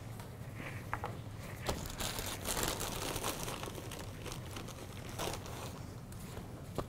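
Plastic tortilla package crinkling and rustling as a large flour tortilla is pulled out of it, with a few light knocks.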